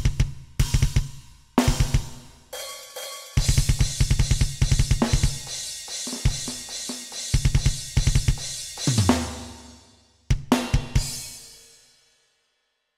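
Electronic drum kit (Alesis Nitro Mesh) triggering custom sampled drum sounds in a metal style: fast double-bass kick runs under cymbals and snare. Near the end come a few last hits, then a cymbal rings out and the playing stops.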